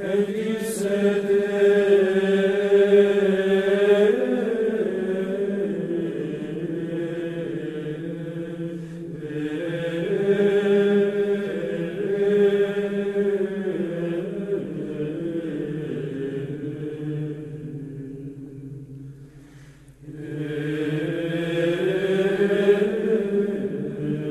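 Background music of slow sacred chant: voices singing long held notes in phrases, with short breaks about nine seconds in and again near the twenty-second mark.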